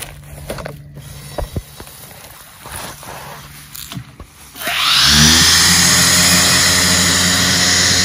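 Electric motor of a remote-control robot's circular saw blade spinning up sharply about halfway through, rising briefly in pitch, then running steadily with a loud whine and hiss. Before it starts there are only faint clicks and a low hum.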